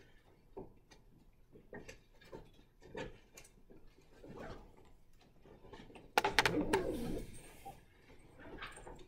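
Quiet room noise of a class working on its own: faint scattered taps, rustles and small knocks, with one louder clatter of several sharp knocks about six seconds in.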